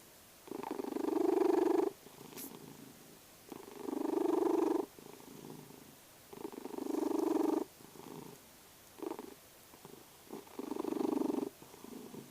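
A domestic cat making a loud rhythmic rumble with each breath, the owner's 'snoring'. Each loud phase lasts over a second and comes about every three seconds, with a fainter rumble between, one phase cut short near two-thirds through.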